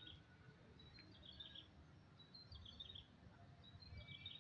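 Faint bird chirping: short runs of high chirps every second or so, over a low background rumble.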